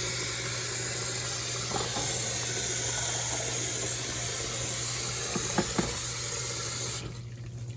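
Water running steadily from a tap for hair washing, with a couple of small knocks a little before it cuts off suddenly about seven seconds in.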